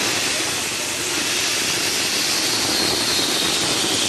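Handheld fire extinguisher discharging onto a burning electric motorcycle, a loud steady hissing rush that stops near the end.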